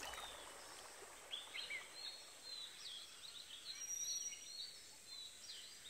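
Faint birds chirping and twittering: many short, quick chirps scattered from about a second in until near the end.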